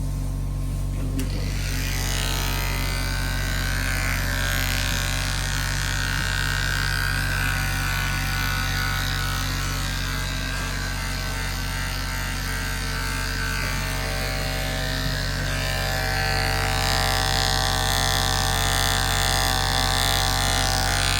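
Electric animal clippers running with a steady buzz, shaving a dog's fur around a bite wound to prepare the area for cleaning; the buzz starts about two seconds in and grows a little louder in the last few seconds.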